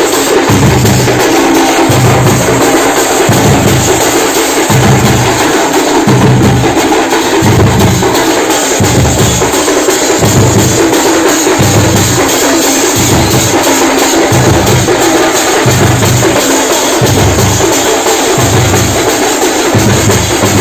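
Festival drums beaten with sticks, very loud, pounding a steady heavy beat of deep thuds over a dense clatter of sticks and metal.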